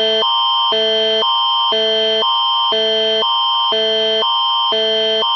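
Canadian emergency alert attention signal (Alert Ready tone): two chords alternating every half second, a higher pair and a lower pair over a constant high pitch, steady and loud. It signals that an emergency broadcast message is about to follow.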